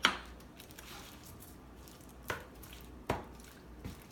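Utensil stirring a hot frozen meal in its tray: a sharp tap at the start and a few more taps and clicks against the tray, with soft scraping between.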